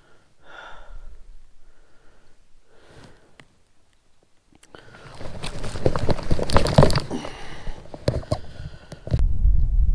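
A person sniffing and breathing, then about four seconds of loud clattering and rustling close to the microphone. A low rumble starts near the end.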